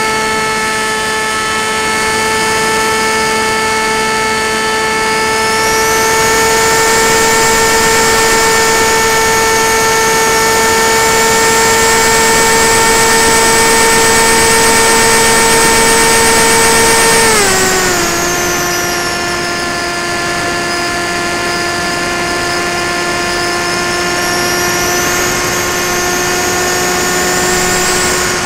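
Brushless motor and propeller of a Tek Sumo FPV flying wing (Multistar Elite 2306 2150KV motor) running under power in flight, a steady whine. About 17 seconds in the pitch steps down as the throttle is eased, then holds steady at the lower note.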